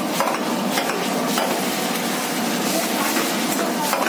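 Metal ladle stirring chicken in thick sauce in a frying pan, scraping and knocking against the pan a few times, over a steady sizzle.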